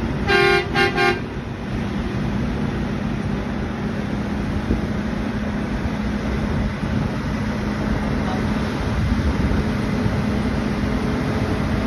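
A semi-truck hauler's horn honks three times, one longer blast and two short ones, about half a second in. After that, heavy truck engines and tyre noise run steadily as the haulers roll past.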